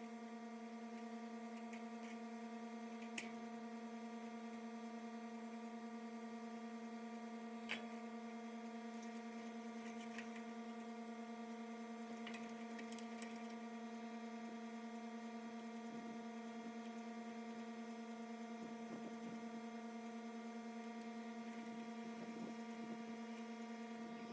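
A steady electrical hum with several even overtones, plus a few faint clicks and small handling sounds scattered through it.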